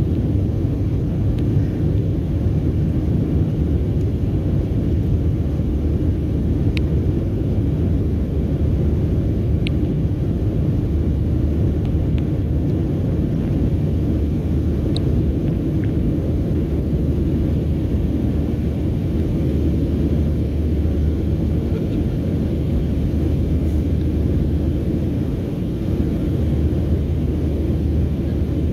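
Steady low rumble of jet engines and rushing air heard inside the cabin of a Southwest Airlines Boeing 737 climbing out after takeoff, with a few faint ticks from the cabin.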